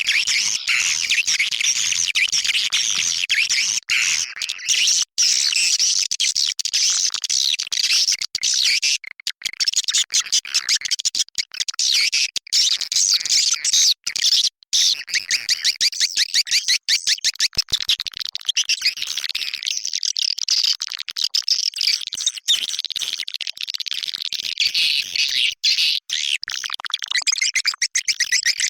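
Swiftlet call track: dense, continuous twittering and rapid chirping of many swiftlets, the high chirps coming in fast, clicky pulses. This is a 'suara panggil' lure of the kind played in swiftlet nesting houses to draw the birds in.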